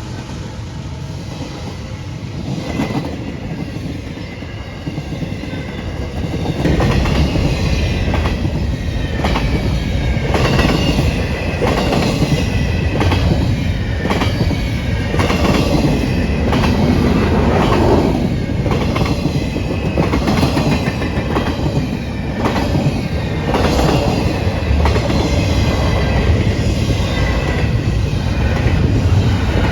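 Freight train cars rolling past, the wheels clacking steadily over the rail joints with faint high wheel squeal. The rumble grows louder about six or seven seconds in.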